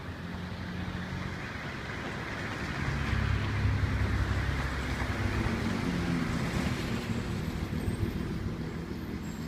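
A motor vehicle passing on the street: a low engine hum and tyre noise that grows louder about three seconds in, then eases off.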